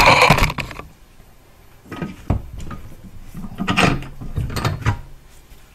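Clunks, knocks and rubbing as a heat-wrapped exhaust downpipe is handled in a bench vise and lifted out: a loud scraping rustle at the start, a few sharp clicks about two seconds in, then more knocks and rubbing around four seconds in.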